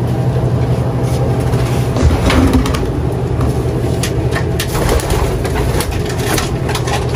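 Racing pigeons cooing in their loft, with scattered light clicks and knocks over a steady low hum.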